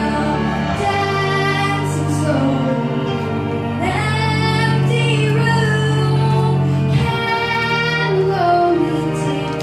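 A girl singing a song into a handheld microphone, holding long notes that glide up and down in pitch, over sustained accompaniment chords that change every few seconds.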